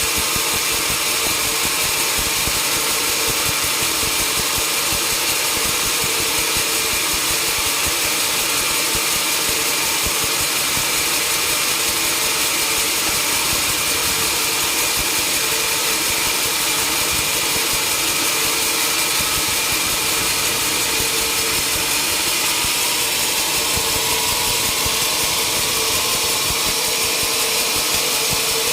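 Sawmill machinery running steadily at a constant speed: an even engine drone with a steady high hiss and no change in load.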